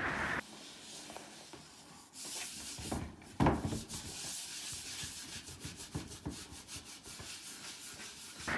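A round bristle brush scrubbing brine onto the rind of a wheel of alpine cheese, rubbing in quick back-and-forth strokes: the wet smearing that ripening cheese gets daily.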